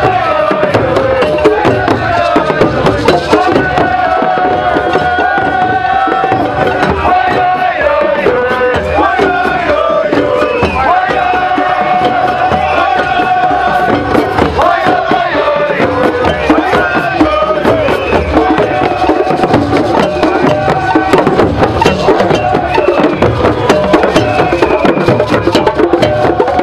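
A crowd of marchers singing together over steady hand-drum beats.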